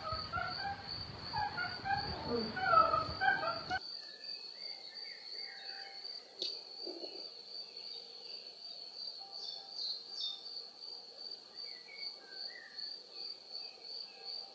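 Nature soundscape: an insect's steady, high, pulsing trill with bird calls. For the first four seconds louder, sliding calls sit over background noise; these cut off suddenly, leaving the trill and scattered short chirps.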